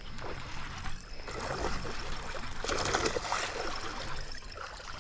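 Water splashing and gurgling at the pond's surface, in uneven surges.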